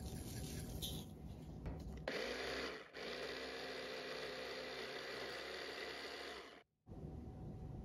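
Electric blender running steadily for about four and a half seconds, with one brief dip about a second after it starts, then cut off abruptly, most likely blending the basil pesto. Before it, light kitchen handling sounds.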